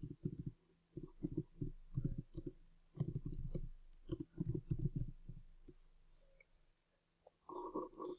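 Computer keyboard typing: quick runs of keystrokes that thin out and stop about six seconds in.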